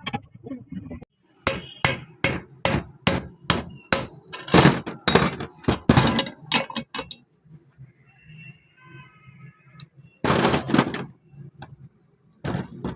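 A run of sharp knocks, about three a second for several seconds, then a short pause and another dense burst of knocking near the end, typical of tapping on metal parts during a sewing machine repair.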